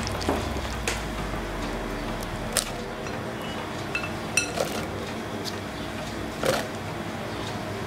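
A utensil stirring thick egg-and-oat batter in a glass bowl, with a few sharp clicks and clinks against the glass, and chopped vegetables dropped onto the wet batter.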